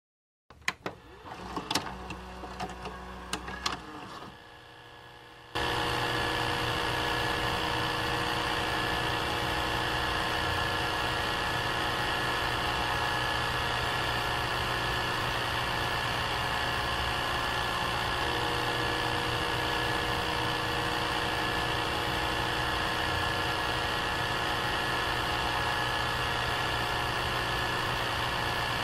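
A few scattered clicks, then about five seconds in a steady engine-like drone sound effect starts and runs on unchanged.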